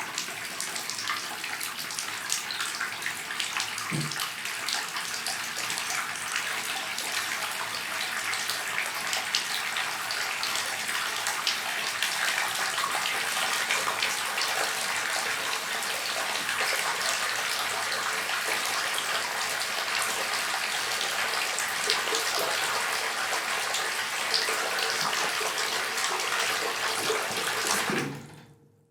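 Water running steadily, like a tap filling a tub, fading out near the end.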